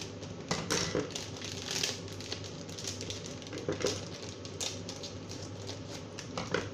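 Kitchen scissors snipping through a plastic food packet, the bag crinkling in short bursts, over a steady low hum.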